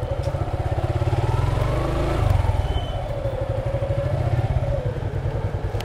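Motorcycle engine running at low speed with a steady, rapid pulsing beat, its pitch rising and falling gently with the throttle.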